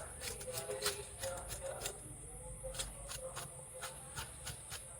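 Quick, irregular light clicks and rustles, several a second, from hands working on an opened laptop's parts.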